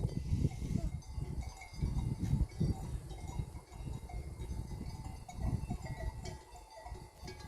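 Neck bells on a herd of goats clinking and jingling irregularly as the goats move about, over a low uneven rumble on the microphone.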